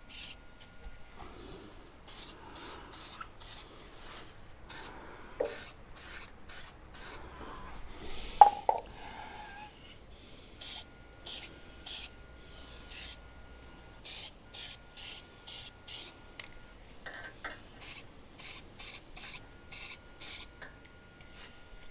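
Aerosol can of primer spraying in many short hisses, about one or two a second. A couple of sharp knocks come about midway, the second the loudest sound.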